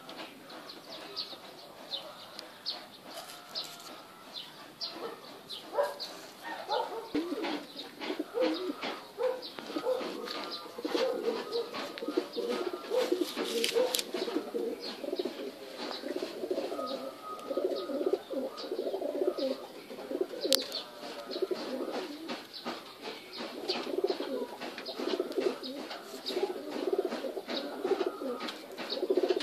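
Domestic pigeons cooing, a low throbbing coo repeating over and over from about seven seconds in, over many quick sharp ticks.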